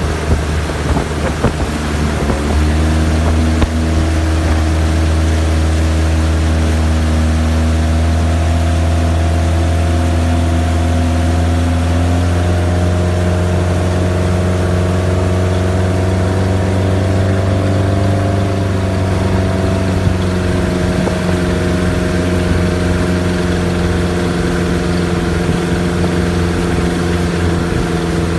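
Tow boat's engine running steadily under way, with wind and rushing water over it; the engine note steps up slightly about two and a half seconds in.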